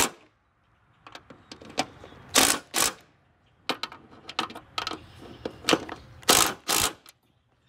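Cordless impact driver hammering in short bursts as it runs down the bolts holding a mower-deck spindle housing. There are two strong bursts about two and a half seconds in, lighter clicks after them, and two more strong bursts near the end.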